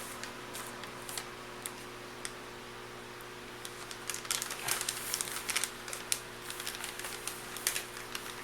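Plastic MRE flameless ration heater bag crinkling and rustling in irregular bursts as it is handled and kneaded, busier from about four seconds in; kneading is what gets the heater reacting and warming up.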